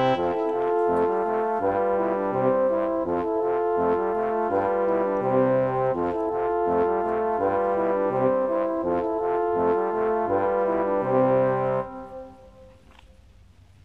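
Background music on brass instruments, a trumpet-ensemble tune in short, quick notes. It stops suddenly about twelve seconds in, leaving only faint background sound.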